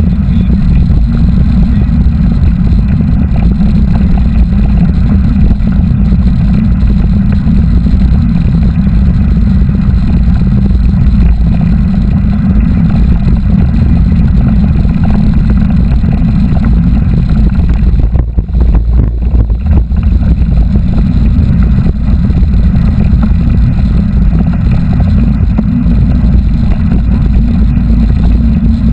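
Steady, heavy low rumble of wind buffeting the camera microphone while moving, with a brief lull about two-thirds of the way through.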